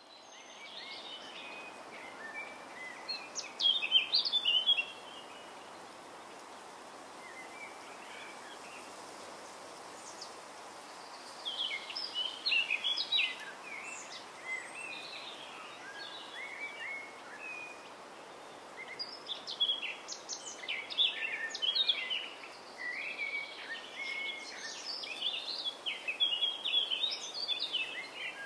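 Birds chirping and singing in scattered bursts over a steady background hiss, like a recorded nature ambience. The chirping grows busier in the second half.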